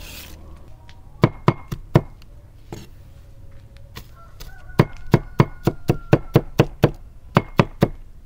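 Knife chopping on a cutting board in short bursts: four strokes, then a quick run of about nine at roughly four a second, then three more near the end.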